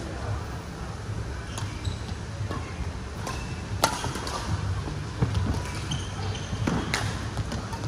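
Badminton racket strikes on a shuttlecock during a singles rally: several sharp cracks one to two seconds apart, the loudest about four seconds in, over a steady low hum.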